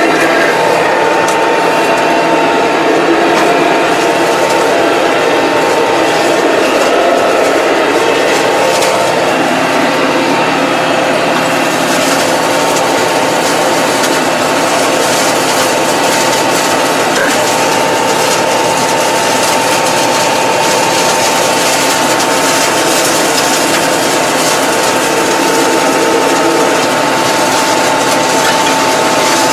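Massey Ferguson 2220 tractor's engine and PTO-driven mower running steadily under load, heard from inside the cab, with a steady whine over a hiss of cutting. The hiss grows brighter about a third of the way in.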